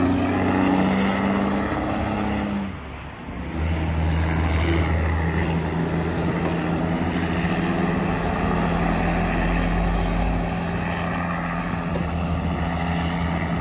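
Heavy dump trucks' diesel engines pulling loaded up a steep grade, a steady deep engine note under load. The sound drops briefly about three seconds in, then a deeper, heavier engine note takes over.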